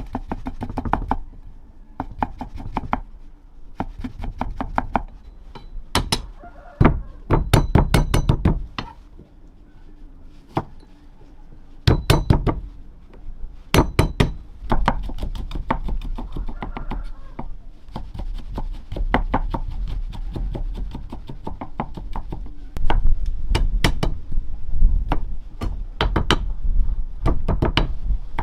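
Repeated hard whacks in quick runs of several strokes a second, broken by short pauses, each stroke with a dull thud beneath it.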